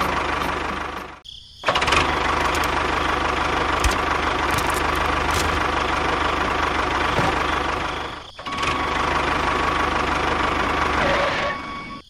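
A tractor engine running steadily with a low, even knocking beat. It breaks off briefly about a second in and again near eight seconds.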